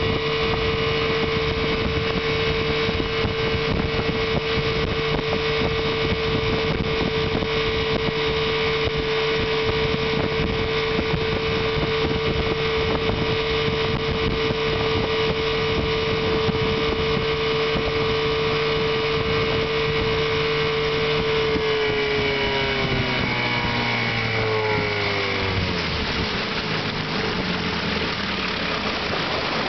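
1970 Chrysler-built Sea King 9.6 hp outboard, a two-cylinder two-stroke, running steadily at speed with the boat under way. About three-quarters of the way through it is throttled back, its pitch falling over a few seconds and settling toward idle.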